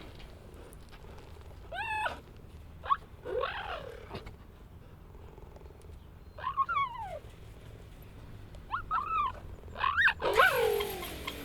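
Cheetahs calling: about six short, high-pitched calls spread out with gaps between them, each rising then falling in pitch. The last call is the loudest and slides down low.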